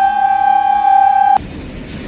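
Indian Railways WAG-7 locomotive's horn sounding one loud, steady note that cuts off abruptly about a second and a half in, giving way to the rumble of the freight train rolling past.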